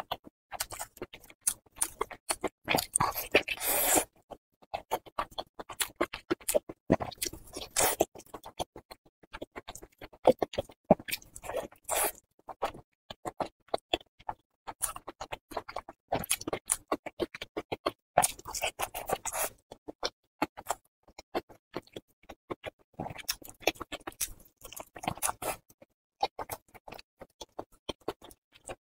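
Close-miked eating: wet mouth smacks, chewing and sticky tearing as a sauce-covered piece of braised pork is bitten and chewed. Irregular clicks and smacks, with louder bursts every few seconds.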